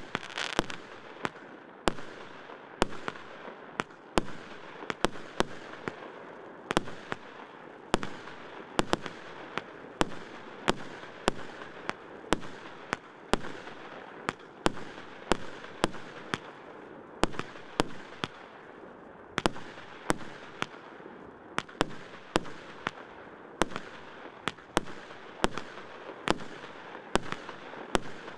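Consumer firework battery (cake) firing shot after shot: sharp bangs about one or two a second, over a continuous crackling hiss.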